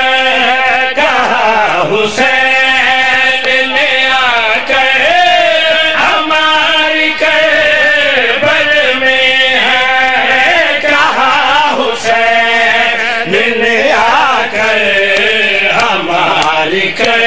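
Men chanting a devotional qasida at full voice, drawing out long melodic notes in unbroken singing.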